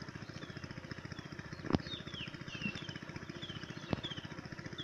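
A bird calling over and over in short falling chirps, two or three a second, over a low, evenly pulsing hum. Two sharp clicks stand out, one a little under two seconds in and one about four seconds in.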